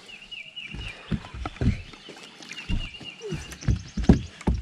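A songbird singing a quick run of short repeated chirps, twice, over scattered low knocks and thumps on the boat.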